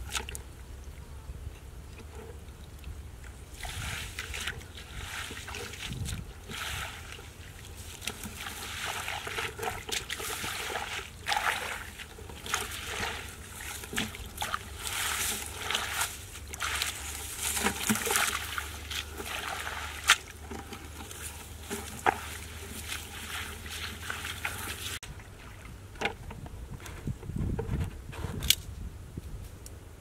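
Bare feet and hands splashing and squelching through shallow muddy paddy water, trampling dry rice straw: a run of irregular sloshes and slaps, busiest through the middle, with one sharp knock about two-thirds through.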